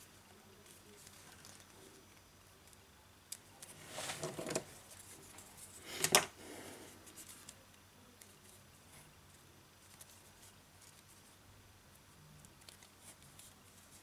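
Faint handling noise from fingers pressing and rubbing along the plastic edges of a BQ Aquaris E6 smartphone as its freshly glued display module is seated. There is a brief scrape about four seconds in and a sharper click about six seconds in, then a few small ticks.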